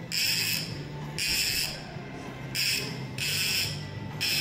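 Fishing reel on a jigging game's rod controller cranked in quick spurts: a rasping whir about half a second long, repeated about five times.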